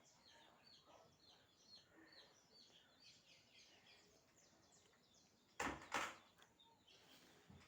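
Small birds chirping over and over in the background, many short falling chirps. Two sharp knocks about five and a half and six seconds in.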